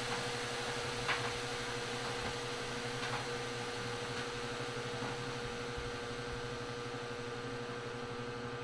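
A steady mechanical hum with a faint hiss and one held tone, with a couple of faint clicks about one and three seconds in.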